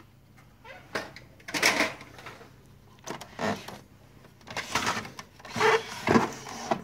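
Plastic rattling and clicking from the Samsung ML-2525 laser printer's rear cover and housing being taken off and handled, in several short, separate bursts.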